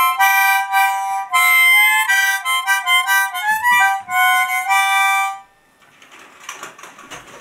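Small child playing a harmonica, blowing and drawing chords of several reeds at once that change in quick succession. The playing stops about five and a half seconds in, leaving only faint breathy noise.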